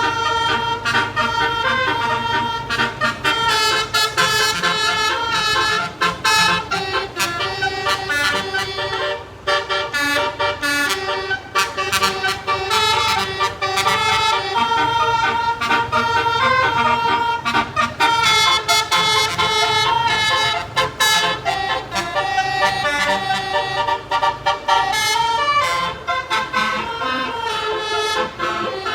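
Indonesian bus telolet horns: a bank of bus air-horn trumpets playing a melodious tune, note after note, stepping up and down in pitch.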